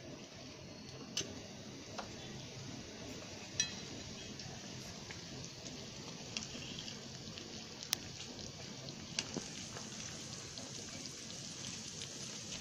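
Egg curry gravy simmering in a metal kadhai, a steady bubbling hiss with a few scattered sharp clicks and pops, while eggs poach in it.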